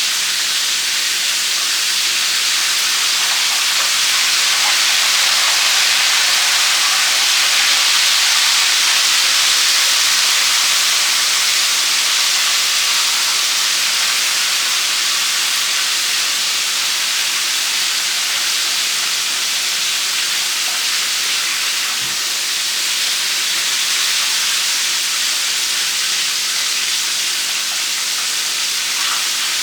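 Flour-and-cornstarch-breaded chicken drumsticks deep-frying in hot oil, a loud, steady sizzle. There is a single faint knock about 22 seconds in.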